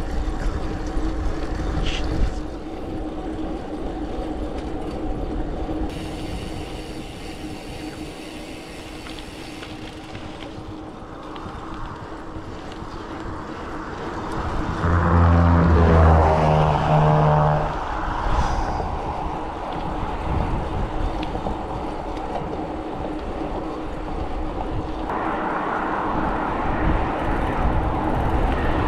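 Wind rushing over the microphone of a camera on a moving gravel bike, with a steady rolling noise. Around the middle a louder, low pitched hum swells for about three seconds, then fades.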